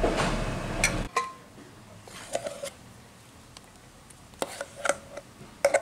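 Steady background hiss and hum that cuts off abruptly about a second in, then a handful of scattered clinks and scrapes of metal on stainless steel as thick ground dal paste is moved from the mixer jar onto a steel plate.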